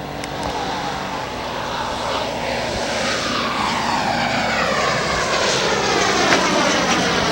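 Engine of a radio-controlled scale model Corsair flying its landing approach. It grows steadily louder as it comes nearer, and its pitch slides down over the second half.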